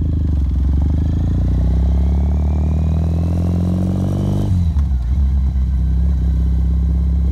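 Motorcycle engine running while under way, heard from the rider's seat. Its note climbs gradually for about four and a half seconds, then drops suddenly and runs on steadily at a lower pitch.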